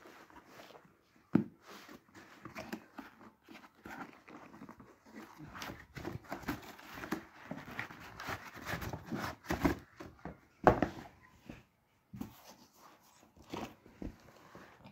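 Cardboard shipping box being handled and pulled open while a claw hammer is slid out of it: irregular rustling and scraping of cardboard, with a sharp knock about a second and a half in and another about ten and a half seconds in.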